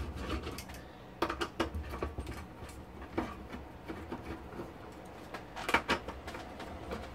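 Scattered light clicks and knocks as the aluminium chassis frame of an HP 5328A frequency counter is handled and its side pieces worked loose, over a low steady hum.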